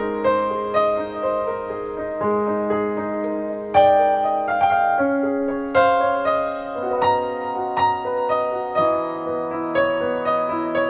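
Gentle solo piano background music, a steady run of single struck notes over held lower notes.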